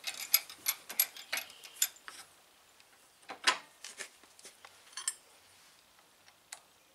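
Light metallic clicks and taps of a motorcycle brake caliper being handled in a bench vise. A quick run of clicks comes in the first two seconds, then single clicks follow every second or so.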